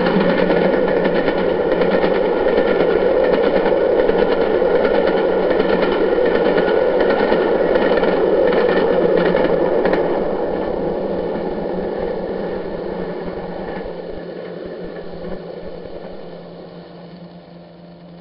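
Model railway trains running on the layout's track: a steady whirring of small motors with rapid clicking of wheels over the rails. It gradually fades after about ten seconds.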